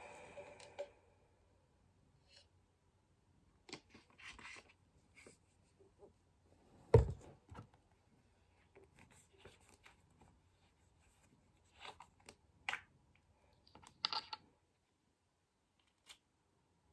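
Quiet plastic handling noises as a pump dispenser is pushed into a shampoo bottle and screwed on: scattered small clicks and rustles, with one dull thump about seven seconds in.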